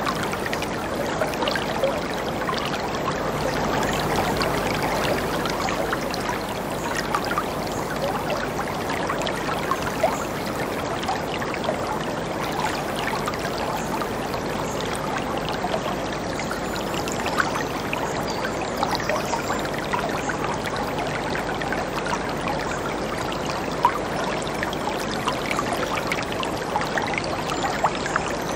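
Whitewater river rapids rushing over rocks: a steady, unbroken wash of moving water with small splashes all through it.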